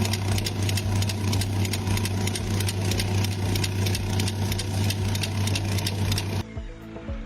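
An engine running steadily with a low, even hum and a fast clatter over it. About six and a half seconds in, it drops away to a quieter, different sound.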